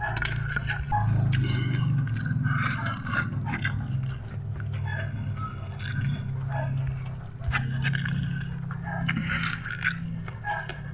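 Close-up chewing and mouth sounds of a person eating, with many small clicks and smacks over a low steady murmur.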